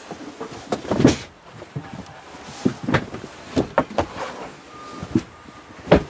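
A fold-down RV bed being made up by hand: irregular knocks and thumps as the mattress is set down and pushed into place, with fabric rustling as a fitted cover is pulled over it.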